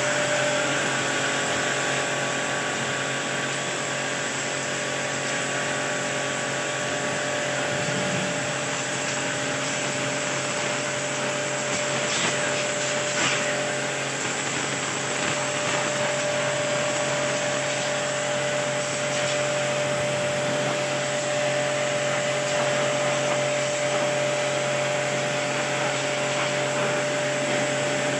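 Biosafe Powermax Army Style electric high-pressure cleaner running steadily on a pressure test, its motor and pump humming under the hiss of the water jet spraying onto paving and into a plastic bucket.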